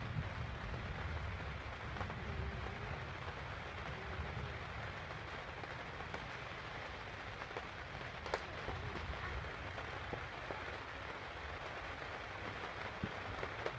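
Steady rain falling on a caravan roof, with a low rumble underneath. A few sharp taps stand out, the loudest about eight seconds in.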